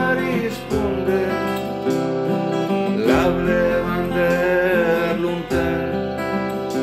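Acoustic guitar strummed in a folk-song accompaniment, with a new chord struck about every two and a half seconds, under a man's singing voice holding long notes.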